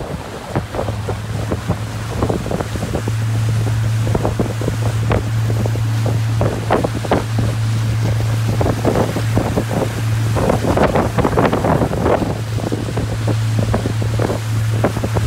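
Motorboat under way: a steady low engine hum that comes in about half a second in, with water splashing irregularly against the hull and wind buffeting the microphone.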